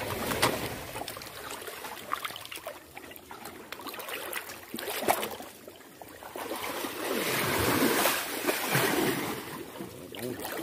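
Water splashing and trickling in shallow water, irregular, with scattered sharp knocks and splashes. A louder stretch of sloshing comes about seven to nine seconds in.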